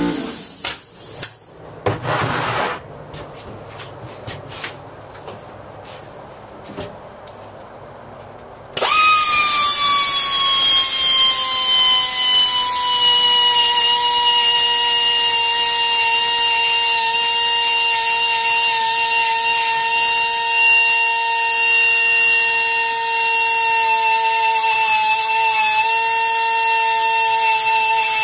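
Handheld grinder starts suddenly about nine seconds in and then runs with a steady high whine, its pitch easing slowly down, as it deburrs the casting flash on a Pontiac 455 cast-iron cylinder head. Before it starts there are a few light knocks of handling.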